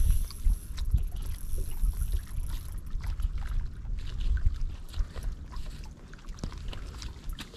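Wind rumbling and buffeting on the microphone over splashing sea water at a rocky shore, with scattered light clicks.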